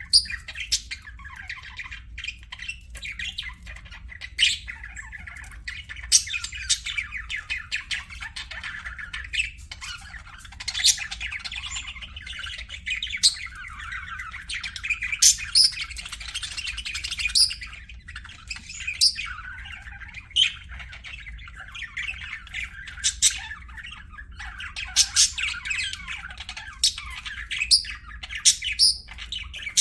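A group of budgerigars chattering in a continuous warbling stream, broken every second or two by sharp, loud chirps and squawks.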